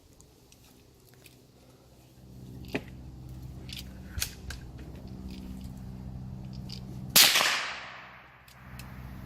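A single .22 LR rifle shot about seven seconds in, sharp, with a long echoing tail that fades over about a second. Before it, a steady low hum and a few faint clicks.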